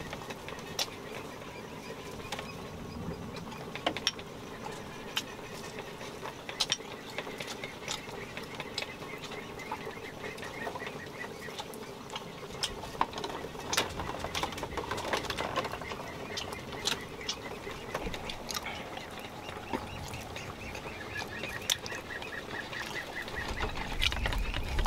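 Wooden chopsticks clicking against porcelain bowls and plates during a meal, in sharp separate clicks scattered throughout. Near the end an animal calls in a rapid rattling series.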